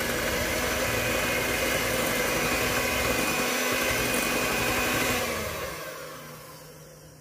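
Electric hand mixer running steadily, its beaters whisking cake batter. About five seconds in it is switched off and its whine falls away as the motor spins down.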